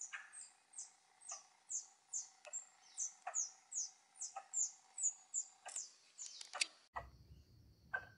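A small animal's sharp, high chirping calls, repeated about two or three times a second, each note falling in pitch. About seven seconds in a low steady rumble joins them.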